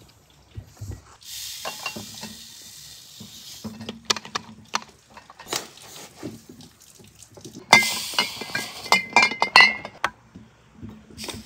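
Granulated sugar poured by the scoopful into glass jars of strawberries, hissing as it runs in, twice, the second pour louder. Glass clinks and knocks come in between and during the second pour.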